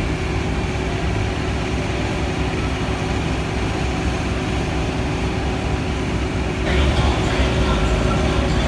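Car engines running with a steady low rumble, which grows louder and harsher about seven seconds in.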